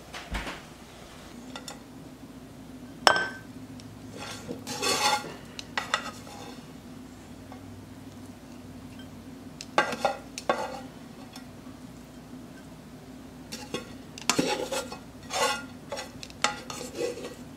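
Metal tongs scraping and clinking against a skillet as cooked meat is pushed out into a glass container, in short scattered clatters, over a steady low hum.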